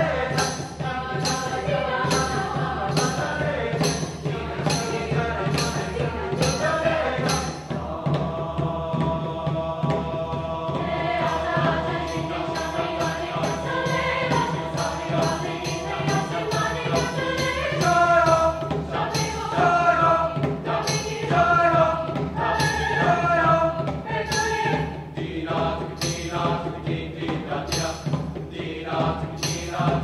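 Mixed high school choir singing, over a steady high percussive beat of about two strokes a second. The beat drops out for a few seconds about eight seconds in, then returns.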